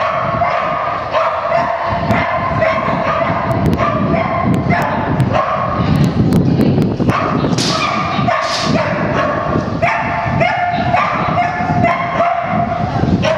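A dog barking over and over in short, quick barks, almost without a break.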